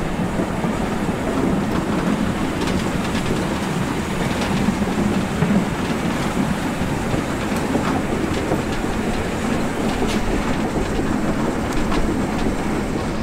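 Steam locomotive No. 92.2271 running along the line, heard from low at the front close to the rails: a steady wheel-on-rail rumble with occasional sharp clicks.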